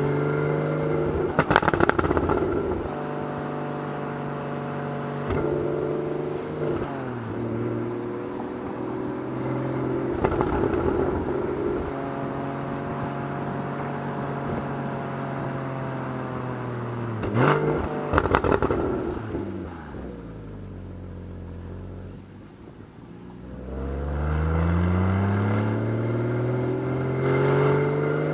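Porsche 981 Boxster flat-six engine pulling through the gears on a mountain road. The revs climb, hold steady, fall away as the car slows and quietens for a bend, then rise steeply again near the end as it accelerates out. Brief noisy crackles come twice, a couple of seconds in and a little past halfway.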